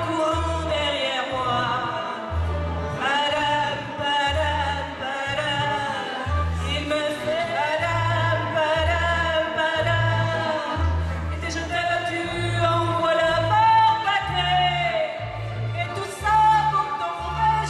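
A woman singing into a handheld microphone, amplified through PA speakers over accompanying music with a bass line of held notes.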